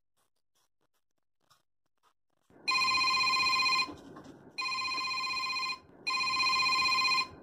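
A phone ringtone ringing three times, each ring a steady tone about a second long, starting about two and a half seconds in.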